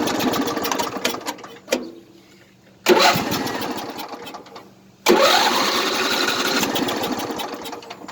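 Craftsman LT1000 riding mower engine running, then dying away about a second in. It catches suddenly twice, and each time it runs for a couple of seconds before fading out again. This is a hard-starting engine that won't keep running.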